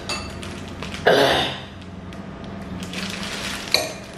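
A loud slurp of instant noodles about a second in, with the crinkle of a plastic noodle packet being handled and a brief sharp noise near the end.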